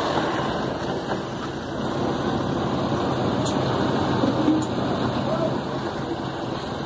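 A truck engine idling: a steady, even rumble throughout.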